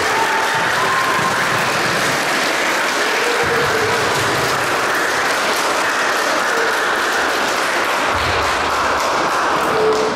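Audience applauding steadily in a large hall, dying away at the very end.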